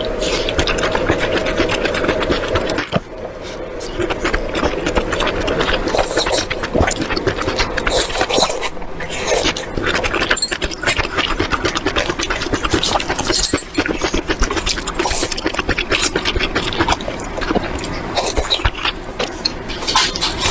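Cooking in a pan: dense crackling with scraping of a utensil, with a steady hum over the first few seconds.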